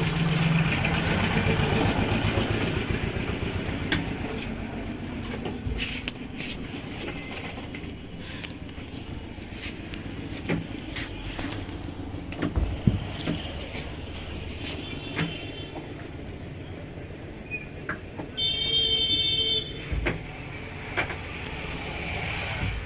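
Steady rumble of passing road traffic, loudest in the first few seconds, with scattered clicks and knocks. A vehicle horn sounds once, briefly, about nineteen seconds in.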